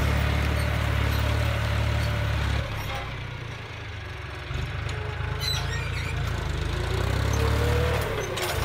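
John Deere 5045D tractor's three-cylinder diesel engine running under load at high revs as it pulls a disc plough through the soil. Its sound drops for a couple of seconds in the middle, then picks up again.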